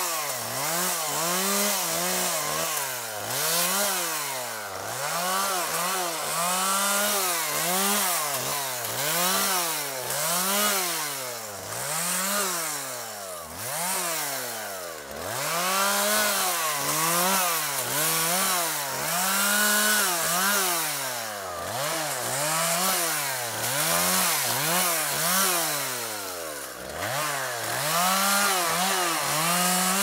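Two-stroke chainsaw limbing a felled tree trunk: the engine revs up to full speed for each cut through a branch and drops back toward idle between cuts, over and over, about once every second or so.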